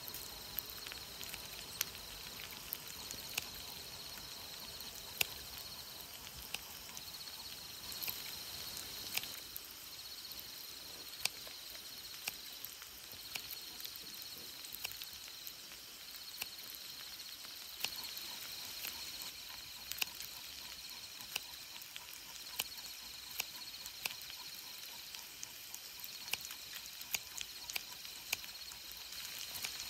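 Insects trilling faintly in a high band that comes and goes every couple of seconds, with scattered sharp clicks and ticks over quiet outdoor background.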